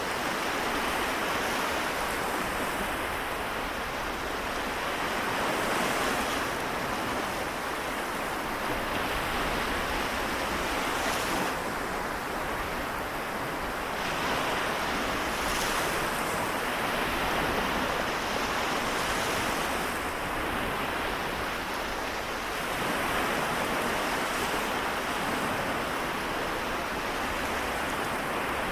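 Waves of the Seto Inland Sea washing in, a steady rush of surf that swells and eases every few seconds, with a brief hissing splash now and then.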